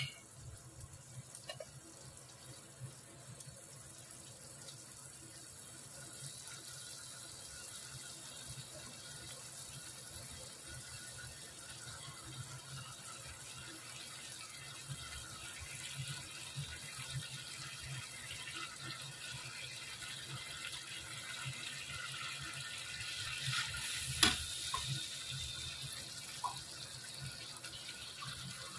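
Onion, garlic and chili masala paste, thinned with water, sizzling and bubbling in hot oil on a high gas flame, a steady hiss that slowly grows louder. One sharp click about 24 seconds in.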